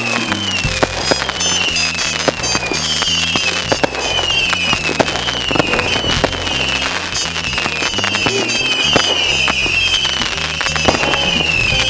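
Consumer aerial fireworks bursting in quick succession, a dense run of bangs, pops and crackling. Over them, a high warbling tone sweeps downward and restarts every second or so.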